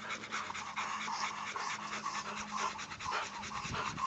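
Pit bull panting hard, fast and even, several breaths a second.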